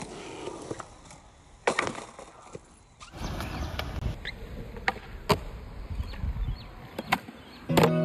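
Skateboard wheels rolling on concrete, with several sharp clacks of the wooden deck hitting the ground. Music comes in near the end.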